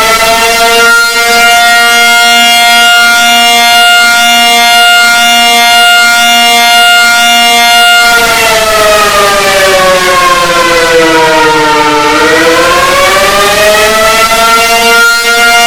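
Civil defense siren wailing. It holds a steady pitch for about eight seconds, slides down over about four seconds, then climbs back up, with a lower tone pulsing beneath it.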